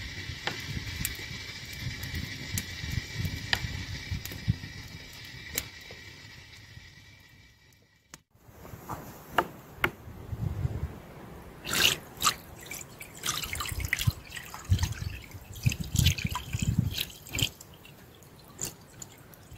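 Reduced maple sap, nearly syrup, poured from a plastic pail through cheesecloth in a mesh strainer into a pot, splashing and trickling: the syrup being filtered at the finishing stage. Before that, for the first several seconds, a steady hiss over the steaming pot of boiling sap fades out.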